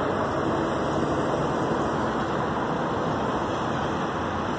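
Steady rushing outdoor background noise, low and mid pitched and even throughout, with no distinct events.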